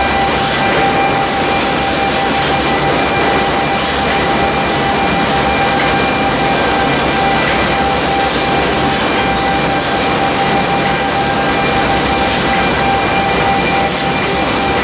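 Conveyors and packing machinery of an industrial bread line running: a loud, steady mechanical din with a constant whine through it.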